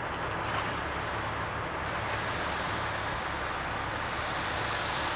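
Dump truck engine running while gravel base rock pours from its raised bed in a steady rushing hiss over the engine's low hum. A short high squeak comes about two seconds in and again more faintly later.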